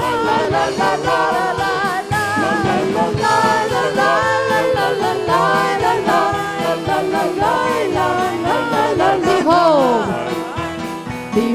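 Live worship music: a band with a steady beat playing the melody of a lively praise song, with voices singing along, and a falling slide in the melody about nine and a half seconds in.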